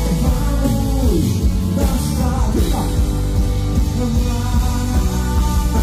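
Live gospel music: a band playing loudly with heavy bass, and a singing voice over it.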